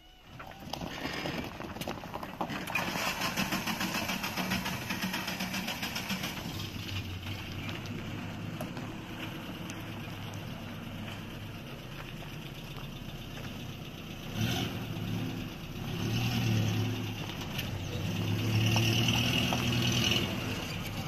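Pickup truck's engine starting, then running as the truck drives off. There is a sharp click about two-thirds of the way through, and the engine grows louder twice near the end as it pulls away.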